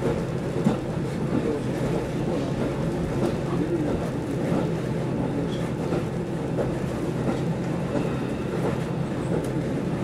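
Steady running noise heard inside a KiHa 40 diesel railcar under way: engine and wheels on the rails, with a few light clicks.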